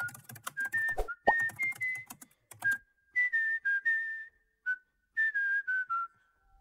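A whistled tune: a string of short, clear notes stepping up and down in pitch, broken into phrases by brief pauses, with light clicks under many of the notes.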